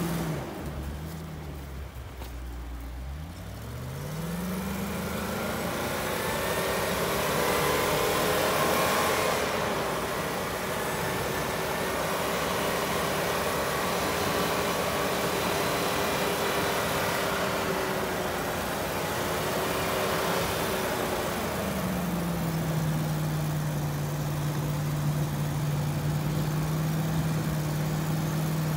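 Land Rover Discovery 2's 4.0 V8 engine pulling through deep snow. Its note dips, rises sharply a few seconds in and holds steady at higher revs, then eases down to a lower steady note about three-quarters of the way through.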